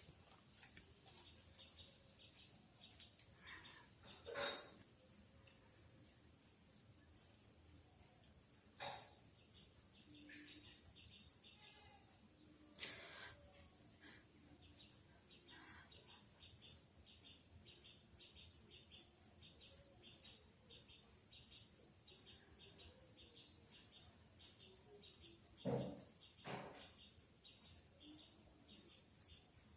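Crickets chirping in a steady, even, rapid pulse, with a few short faint noises now and then.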